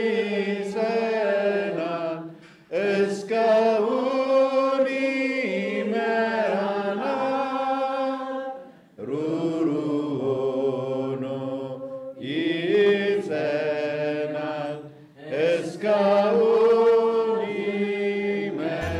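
A choir singing a slow, chant-like church song in long held phrases, with brief breaks about every six seconds.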